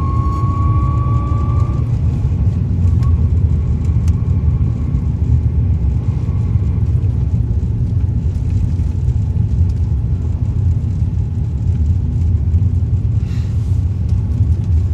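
Lada Granta running with a steady low rumble, carrying a thin high whistle that rises slightly in pitch and stops about two seconds in; the whistle is the one that comes in at around 3,000 rpm.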